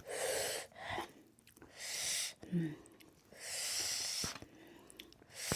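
Three long, forceful breaths of air through the mouth, with brief murmurs between: a person breathing hard against the burn of very spicy food.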